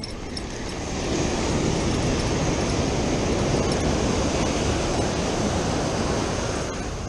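Ocean surf washing up a sandy beach, a steady rush that swells about a second in and eases off near the end.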